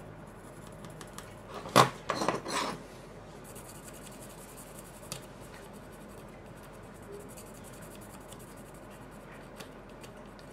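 A graphite pencil scratching and rubbing on the oxidised metal optical block of a Polaroid SX-70 lens, laying down graphite so the shutter blades slide past one another. A sharp click comes a little under two seconds in, followed by about a second of louder scraping, then faint scratching with small ticks.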